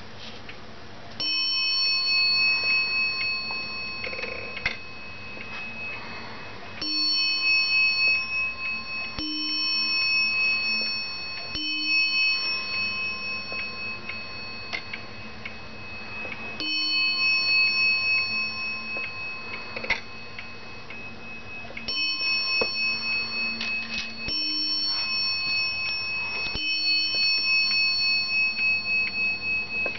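Dutch oak Friese wall clock ticking while its bell strikes about eight times, a few seconds apart. Each stroke rings on and fades slowly with a wavering shimmer. The strikes are set off as the clock's hands are turned round by hand.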